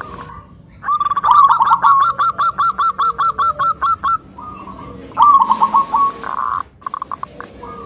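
Zebra dove (perkutut) calling: a fast run of short staccato coos, about six a second for some three seconds, then after a pause a shorter run ending in a brief held note.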